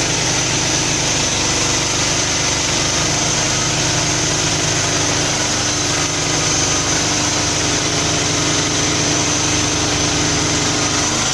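Petrol engine of a homemade band sawmill running steadily.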